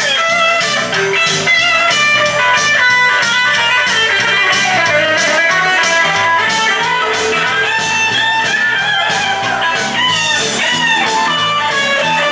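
Live electric guitar music, a picked melody over a steady beat.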